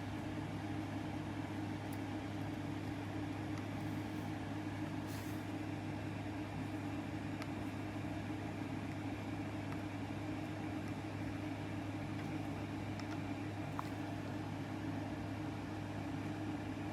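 Steady low machine hum at an even level, with a few faint clicks of small handling noises.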